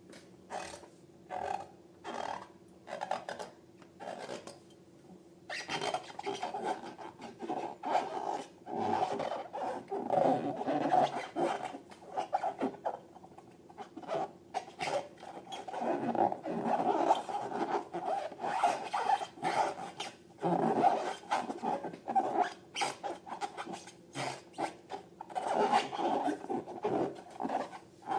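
Slime being worked by hand, stretched, squeezed and stirred: short sticky crackles and squelches with a rubbing rasp, sparse at first and then in a dense, continuous run from about five seconds in.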